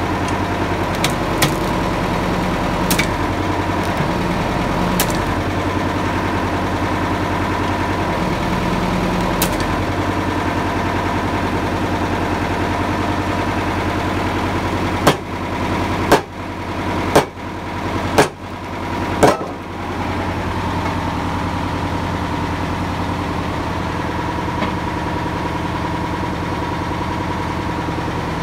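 Tractor engine running steadily, powering a hydraulic log splitter. About halfway through, five sharp knocks come roughly a second apart, the sound dipping briefly after each.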